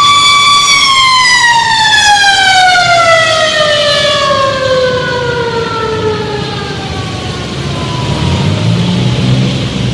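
Emergency vehicle siren holding one steady tone, then falling slowly and smoothly in pitch for about six seconds as it fades. A low vehicle rumble comes up near the end.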